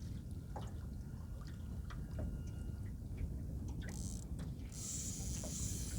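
Water lapping and dripping around a small boat, with scattered light knocks. From about four seconds in, a steady high hiss joins it.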